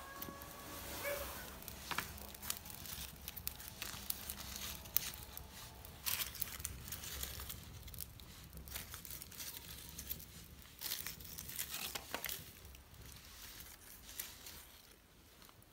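Irregular crackling and crinkling of dry kindling as a newly lit wood fire catches, with dry twigs and leaves rustled as they are pushed into the flames by hand.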